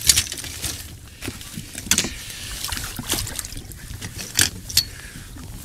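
Scattered clicks, taps and light clatter of fishing gear being handled on a boat deck, over a steady low rumble.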